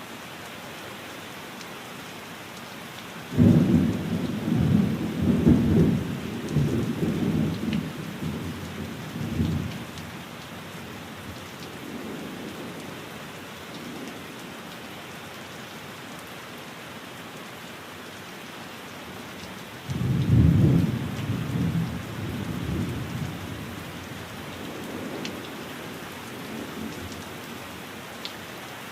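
Steady rain hiss with two rolls of thunder: the first breaks suddenly a few seconds in and rumbles away over about six seconds, the second comes about twenty seconds in and fades over a few seconds.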